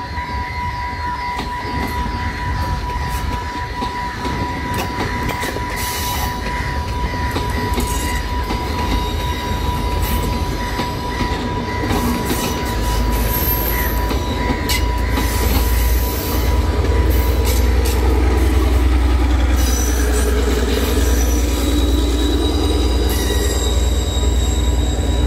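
Sri Lanka Railways diesel multiple unit passing close by, its wheels clattering and squealing on the rails. The low diesel rumble grows heavier from about halfway through as the power car goes past.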